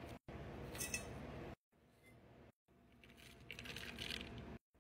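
Metal measuring scoop clinking and scraping in a foil bag of granular powder supplement, then tipping it onto kibble in a plastic bowl. Faint, with a few sharp clinks, in short pieces that cut off abruptly.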